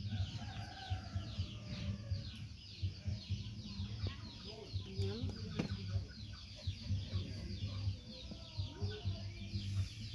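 Background bird calls: rapid, high-pitched chirps repeating several times a second over a low, pulsing clucking.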